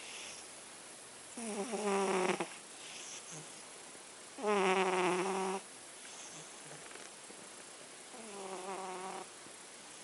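A sleeper snoring: three snores about three and a half seconds apart, each lasting about a second with a buzzing tone. The middle snore is the loudest.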